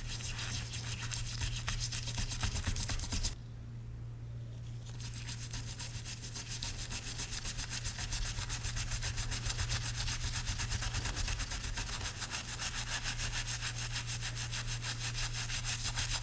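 An old coin being scrubbed in rapid, even back-and-forth rubbing strokes to clean it. The strokes ease off briefly a little past three seconds in, then pick up again. A steady low hum runs underneath.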